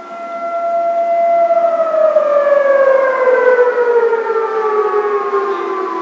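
Whelen 1,600-watt electronic siren with a rotating speaker sounding an air-raid tone. It holds steady at first, then about a second and a half in begins a slow downward glide in pitch as it winds down. Its loudness swells and wavers as the speaker turns.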